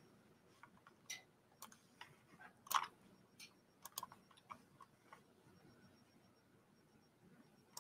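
Faint, irregular clicks and taps of a computer mouse and keyboard, about a dozen, the loudest a little under three seconds in; they stop about five seconds in.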